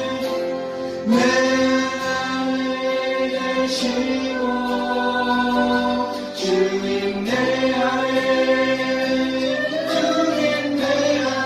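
Church praise team singing a slow worship song together with live band accompaniment, long held notes changing every couple of seconds.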